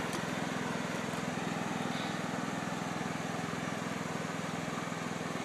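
John Deere tractor engine running at a steady pace, its even low pulsing unbroken.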